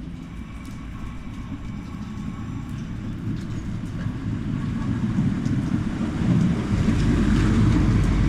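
Train pulling into a station: a steady low rumble that grows gradually louder.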